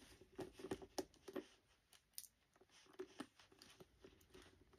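Near silence, with faint scattered clicks and rustles from hands handling a handbag's shoulder strap and its clips.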